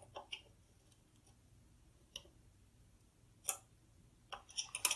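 Scattered sharp clicks of a small metal prying tool against a chip and its socket as the ULA is levered out of a ZX Spectrum motherboard a little at a time; a quick run of clicks comes near the end.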